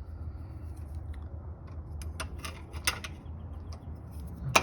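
Small metal clicks and taps of a screen door latch's inside handle piece being fitted back onto the lock, with a sharp click near the end, over a steady low hum.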